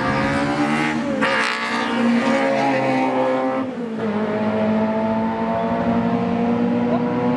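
Drag-racing cars' engines at full throttle down the strip. The pitch climbs and drops back at gear changes about a second in and again about four seconds in, then holds high.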